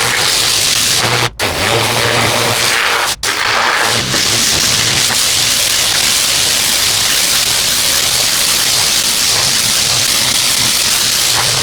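Pressure washer spraying concrete through a turbo nozzle: a loud, steady hiss of water on the surface with a low hum underneath. The sound drops out briefly twice, about a second and about three seconds in.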